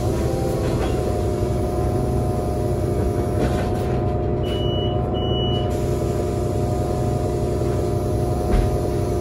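Cabin sound of a Solaris Urbino 18 articulated bus standing still, its Cummins ISL G natural-gas engine idling steadily. About four and a half seconds in come two short high beeps, and near the end there is a brief hiss of air.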